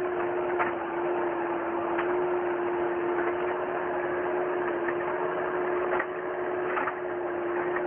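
Skid-steer loader's engine running at a steady speed with a constant hum, and a few short knocks from the raised grapple bucket as it tips manure into a trailer.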